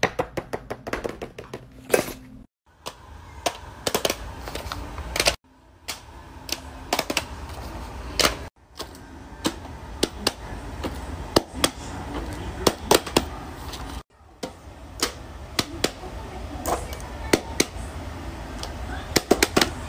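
Fidget toys and metal putty tins being handled and set down: a quick, irregular run of sharp clicks and taps, breaking off abruptly a few times.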